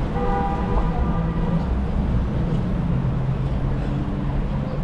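City street traffic: vehicle engines running in a steady low rumble, with a brief high tone in the first second and a low engine hum a few seconds in.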